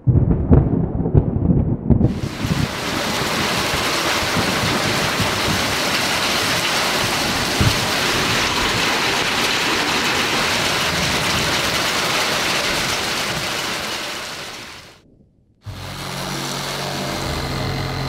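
A low rumble like thunder, then a steady, even hiss of heavy rain that fades out about fifteen seconds in; after a sudden break, a low motor-like hum starts near the end.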